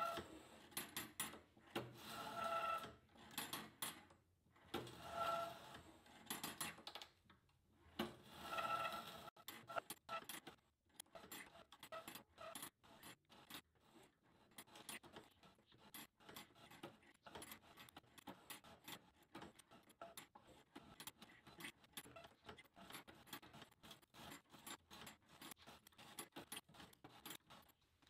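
Woodland Mills blade setter being worked along a sawmill bandsaw blade, setting the teeth one by one: faint metallic scraping and clicking as the lever indexes the blade and squeezes each tooth. Three longer scrapes with a faint ringing come in the first ten seconds, then a run of light, irregular clicks.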